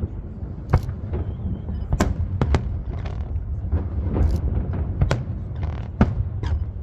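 Aerial fireworks bursting: a string of sharp, irregular bangs about once a second, some in quick pairs, over a steady low rumble, heard through a cell phone's microphone.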